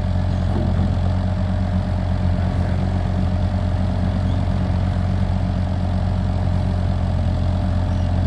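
Kubota U55-4 mini excavator's diesel engine running steadily at idle, an even drone that holds the same pitch throughout.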